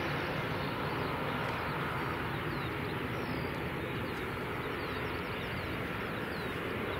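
Airbus A320-216's CFM56 jet engines running at idle as the airliner rolls out after landing: a steady, even roar that slowly fades. A few faint, high, falling chirps sound in the second half.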